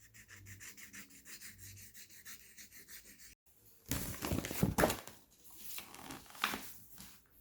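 Crayon scribbling back and forth on a paper activity page, a steady scratchy rhythm of about six strokes a second for about three seconds. After a sudden break, a louder burst of rustling and bumping follows, with scattered softer bumps near the end.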